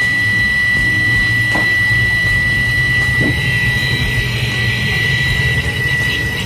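Half-horsepower electric water pump running with a steady high whistle over its motor hum. The whistle comes from the pump end running without water, not from the motor's freshly replaced bearings. A hiss builds up in the second half.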